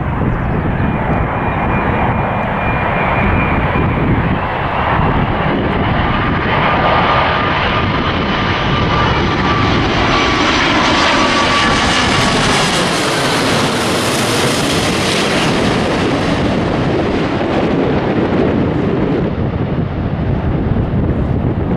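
Jet airliner flying past: its engine noise builds to a peak about two-thirds of the way through and then fades, with high engine whine tones gliding slowly down in pitch. A low rumble of wind on the microphone runs underneath.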